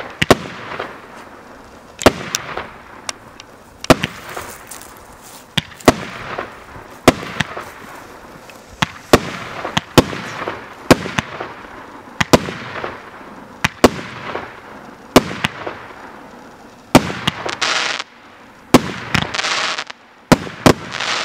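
Joker Fireworks JFC19 "Wow!" fireworks battery firing shot after shot. Shells burst with sharp bangs about once a second, each followed by a fading crackling fizz. Near the end come two longer, louder stretches of dense crackling hiss.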